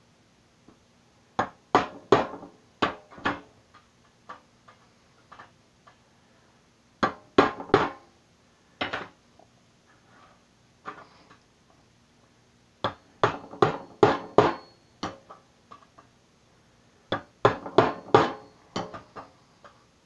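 A knife blade being struck to drive it through the thin flat sheet-metal lid of a cookie tin: sharp metallic knocks that come in four bursts of several quick blows each, with pauses between.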